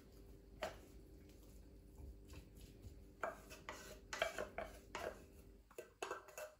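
Canned tuna being scraped out of a metal tin into a ceramic bowl: a utensil scraping and clinking against the can in scattered faint clicks, busiest a few seconds in.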